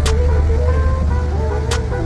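Background music: a melody of held notes with a sharp percussive hit about every second and a half, two of them here. Underneath runs a steady low rumble.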